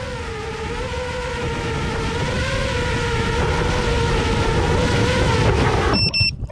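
Motors and propellers of a 6-inch FPV quadcopter running with a wavering whine over wind rumble, growing steadily louder, then cutting off abruptly near the end, followed by a few sharp clicks.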